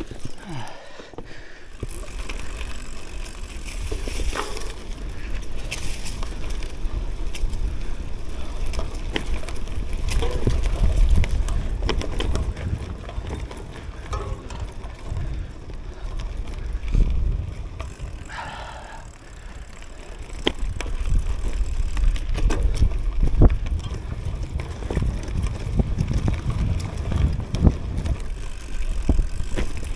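Cube Cross Race gravel bike riding over a dirt forest trail: tyres rolling on dirt with a steady low rumble, and frequent short rattles and knocks as the bike goes over bumps.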